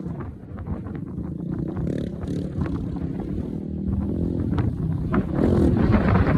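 Polaris Outlaw 500 ATV engine running, its note shifting as the throttle changes and getting louder near the end.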